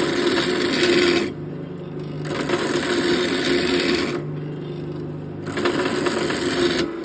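Wood lathe spinning a wooden fishing-rod grip blank while a hand-held turning tool cuts it. A rasping scrape of the tool on the wood comes three times, each for one to two seconds, over the lathe's steady hum.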